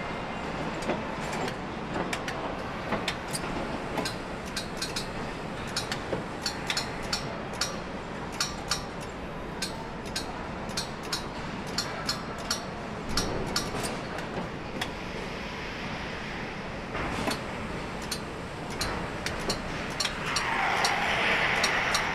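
Van assembly plant floor ambience: a steady background noise with many sharp, irregular clicks and clacks, and a louder hiss in the last couple of seconds.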